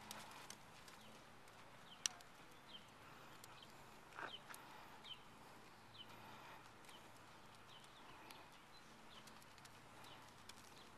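Faint sounds of a paint pony trotting under saddle on a sand arena: soft, regular ticks from hooves and tack about every 0.7 s, with a sharp click about two seconds in.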